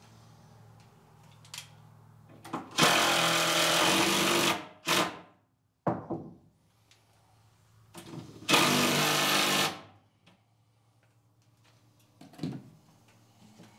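Cordless drill driving screws into the wooden workbench in two runs, the first about two seconds and the second just over a second, with a short squeeze of the trigger after the first.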